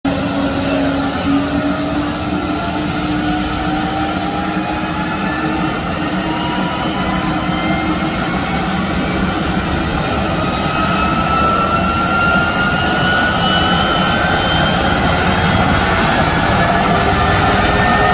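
Turbine engines of an HM-1 Pantera (AS565 Panther) helicopter spooling up on the ground: a high whine with several tones slowly rising in pitch over a low rumble, getting gradually louder.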